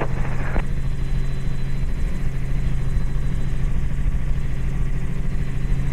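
Robinson R44 helicopter in flight: the steady drone of its piston engine and rotors, heard from inside the cabin.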